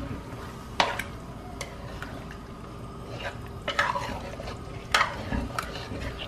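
A spoon stirring thick chili sauce in a stainless steel pot as water is mixed in, with a scrape now and then and several sharp knocks of the spoon against the pot.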